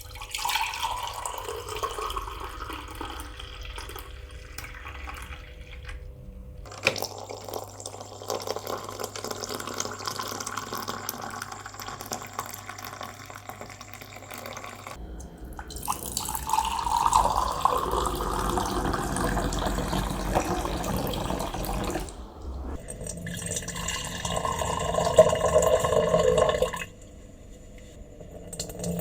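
Water being poured into a vessel, a steady splashing stream. Several separate pours follow one another with abrupt changes between them, the loudest in the second half.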